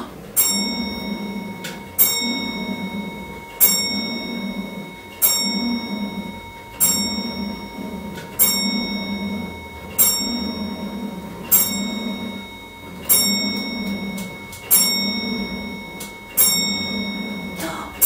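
A clock bell striking twelve slow strokes, about one every second and a half, each ringing on into the next, with a ticking underneath: the clock striking noon.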